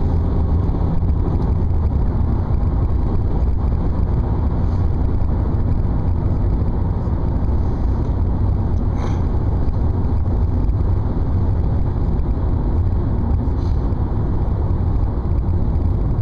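Steady low rumble of a moving vehicle heard from inside the cabin, running evenly throughout.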